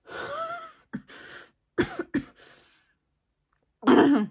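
A person coughing: a fit of about five coughs with short gaps between, the last one near the end the loudest.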